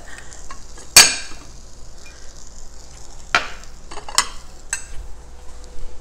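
A small glass Pyrex dish being knocked against and handled over a ceramic plate while a muffin is turned out of it. There is one sharp clack with a brief ring about a second in, then a few lighter clinks and taps.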